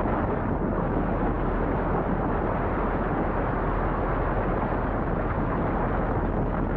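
Strong storm wind blowing, a steady, dense rushing noise.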